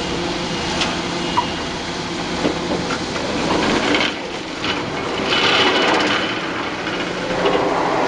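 Kobelco hydraulic excavator running as its vibro sinker clamp grips a steel sheet pile and lifts it, with the steel knocking and scraping. A few sharp clanks come about a second in, and the noise grows louder about halfway through as the pile rises.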